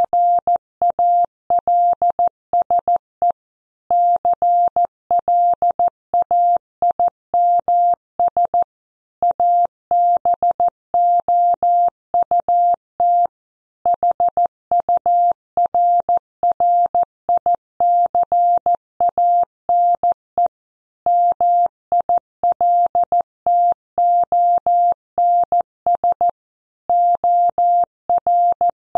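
Computer-generated Morse code: a single steady beep tone keyed on and off in dots and dashes at 14 words per minute, spelling out a news headline, with slightly longer pauses between words.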